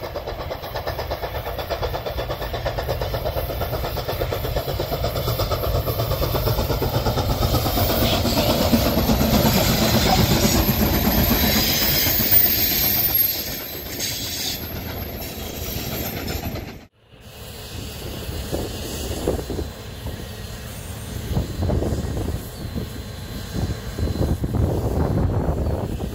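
Canadian Pacific 2816, a 4-6-4 Hudson steam locomotive, and its train running past: a steady rumble that swells to its loudest about ten seconds in, then eases. About seventeen seconds in it cuts out sharply, and a lower, uneven rumble follows.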